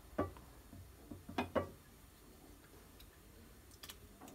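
A few faint, short clicks and light knocks at uneven intervals: two close together about a second and a half in, and a couple more near the end, over a low steady background.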